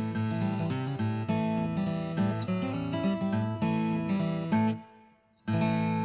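Acoustic guitar music, strummed and plucked in a steady rhythm, breaking off briefly near the end before one last chord that rings out and fades.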